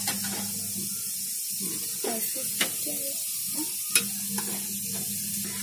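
A spoon stirring shredded carrot and vegetables frying in oil in a steel kadai, with a steady sizzle and a few sharp clinks of the spoon against the pan. A steady low hum runs underneath.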